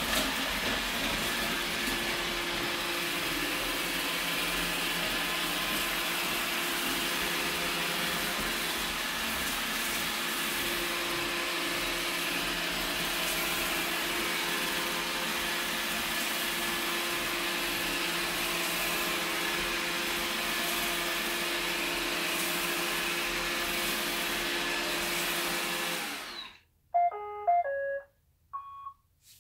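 Roomba robot vacuum running steadily in spot-cleaning mode, a hum of motor and brushes. It shuts off abruptly near the end, followed by a short run of electronic beep tones, the robot signalling that its spot-cleaning cycle is done.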